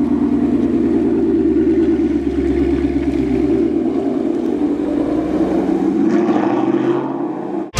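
Ford Mustang GT's 5.0 V8 engine running steadily with a deep exhaust rumble.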